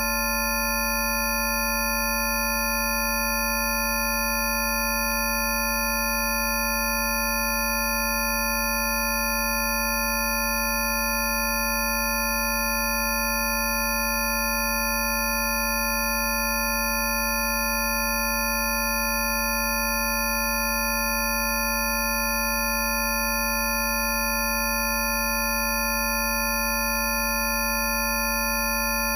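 A steady, unchanging stack of pure electronic sine tones sounding together at many fixed pitches, low to very high, over a low drone: a mix of Rife frequencies.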